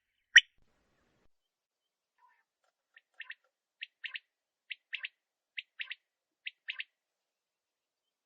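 Male common quail calling: one loud call just after the start, then, after a pause, five fainter three-note phrases of one note and a quick pair, about one a second, stopping about seven seconds in.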